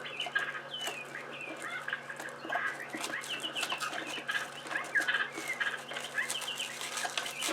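Birds chirping and calling in the background: many short, repeated chirps, with a few faint clicks from handling.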